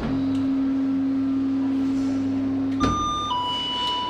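Sesame Access hidden platform lift signalling: a steady low tone for nearly three seconds, then a two-note falling chime.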